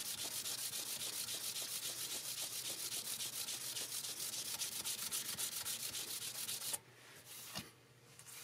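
An abrasive pad is rubbed quickly back and forth by hand over the freshly sprayed, still-soft lacquer of a guitar headstock, leveling it before buffing. The pad is an Abralon foam-backed pad. The strokes make an even, scratchy rhythm of several a second, then stop about seven seconds in and leave a couple of faint light taps.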